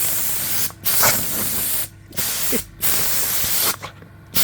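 Compressed air from an air compressor hissing out in repeated bursts, about four in a row with short breaks between them.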